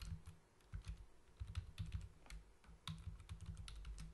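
Typing on a computer keyboard: an irregular run of key clicks with a couple of short pauses between bursts.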